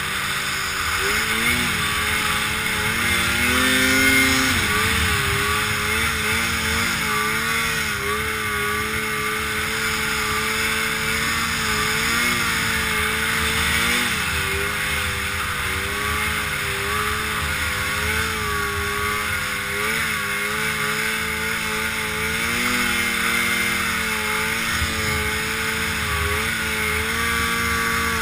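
Snowmobile engine running under throttle while being ridden over snow, its pitch wavering up and down the whole time. A steady rushing noise lies under it.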